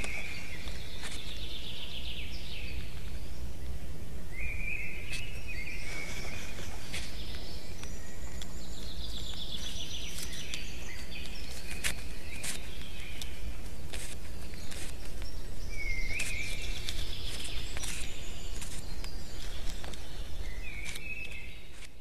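Small songbirds singing a short, repeated phrase every few seconds, over a steady low background noise from the nest webcam's microphone, with scattered faint clicks.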